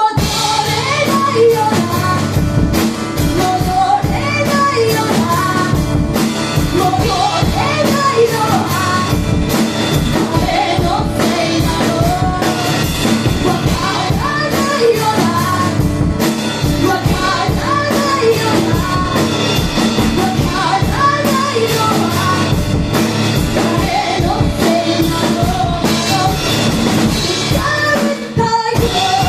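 Live rock band performance: a woman singing over guitar and drum kit.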